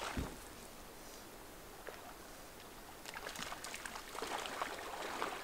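A hooked trout splashing and thrashing at the surface of a small stream, faint scattered water splashes from about three seconds in, after a soft knock at the very start.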